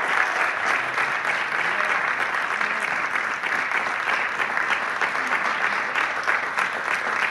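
Applause from many people clapping at once, steady and unbroken.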